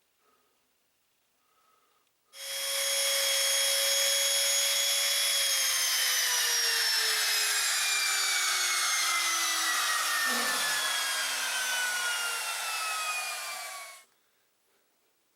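Table saw running at full speed, then switched off: the motor's whine falls steadily in pitch as the blade coasts down, and the sound stops abruptly near the end.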